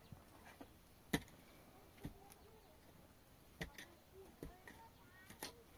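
Faint, scattered light knocks and clicks: about five sharp taps at irregular spacing, the loudest about a second in.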